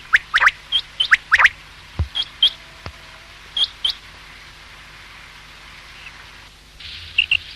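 Common quail calling: sharp sweeping call notes in quick pairs during the first second and a half, then shorter clipped notes in pairs up to about four seconds in, a pause, and two more notes near the end. A faint steady low hum lies under the calls.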